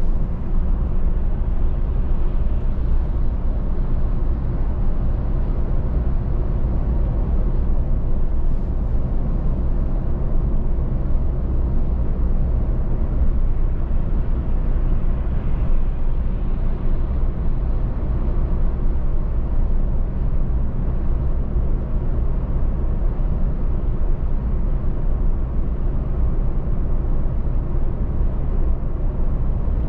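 Car driving steadily at road speed: a constant low rumble of tyres and engine that does not change.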